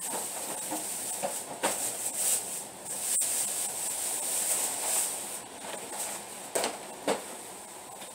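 Scattered knocks and thuds of items being handled and lifted out of a car's open cargo area, about five sharp ones, over a steady high hiss.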